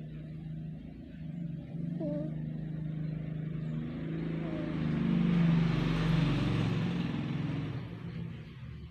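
Domestic cat purring, a steady low rumble with a fast pulse. Midway a louder rushing sound swells up and fades away over about three seconds.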